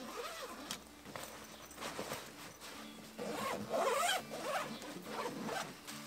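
Zipper of a Tragopan Tetras 500 camera backpack being pulled open and shut, with irregular rasping strokes and the rustle of gear being packed into it, loudest about three to four and a half seconds in.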